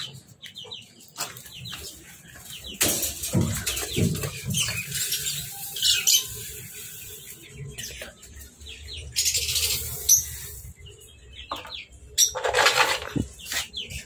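Personata (masked) lovebirds chirping with many short, high chirps, broken by a few short bursts of rustling noise.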